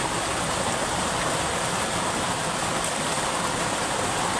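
Water gushing out beneath a dam's sluice gate and churning over the concrete channel below, a steady rushing.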